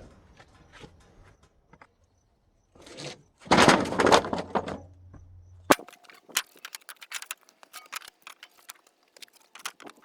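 Sawn wooden boards knocking and sliding against each other as they are laid out, loudest for about a second some three and a half seconds in, followed by a string of light taps and clicks.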